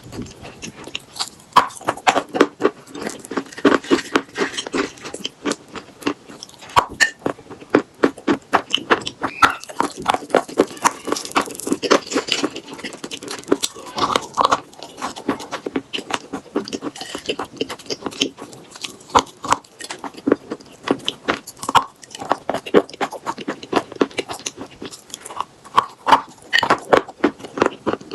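Chalk with paste being bitten and chewed close to the microphone: a dense, continuous run of sharp crunching crackles.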